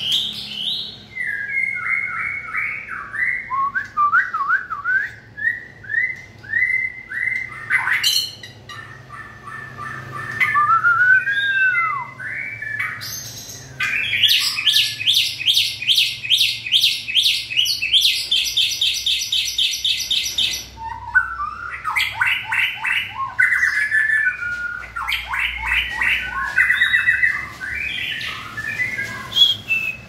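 Male white-rumped shama singing a varied song of whistled phrases, with a long run of fast repeated notes in the middle lasting about six seconds.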